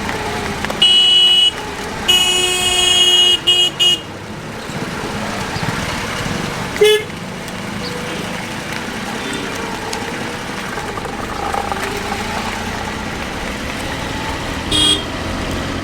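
Vehicle horns honking repeatedly over the steady running of engines in a traffic jam: a blast about a second in, a longer one ending in two short toots, then single short toots near the middle and near the end.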